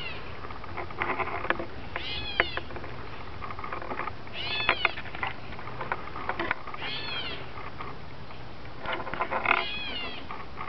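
A bird calling over and over: about five arched calls that rise and then fall in pitch, one every two and a half seconds or so, each led by a quick cluster of clicks.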